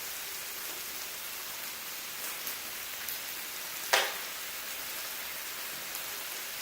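Thin-sliced lamb sizzling steadily on a grill, with a few faint ticks and one sharp click about four seconds in.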